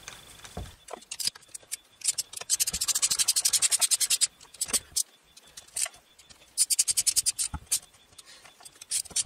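Two runs of rapid metallic clicking, about ten clicks a second, as a tool tightens the bolts on the reed-valve intake manifold of a Husqvarna TC65 two-stroke engine. Scattered knocks and handling noise come between the runs.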